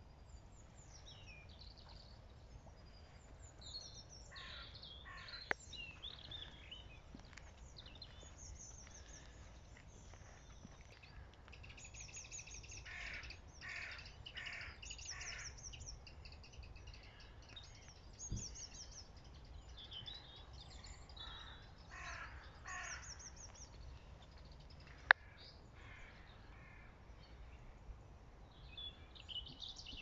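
Wild birds calling outdoors: small birds chirping and trilling high up, with several series of harsher repeated calls. A single sharp click sounds about 25 seconds in.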